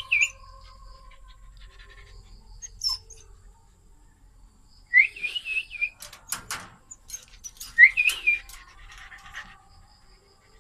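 Dog whining in high, wavering whines, in three bouts: right at the start, about five seconds in and about eight seconds in. A few sharp knocks come between the second and third bouts.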